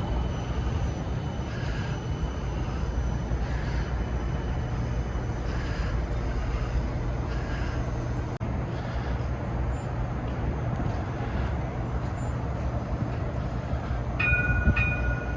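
CAF Urbos 3 streetcar of the Cincinnati Bell Connector running on street rails: a steady low rumble with faint recurring higher pulses. A short high tone sounds near the end.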